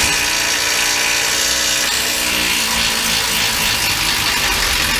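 Impact wrench running steadily for about five seconds, starting and stopping abruptly, while suspension bolts are being removed.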